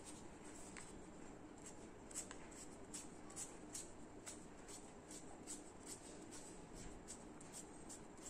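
Faint scratching of a pen drawing quick short strokes on paper, a few strokes a second, starting about a second and a half in.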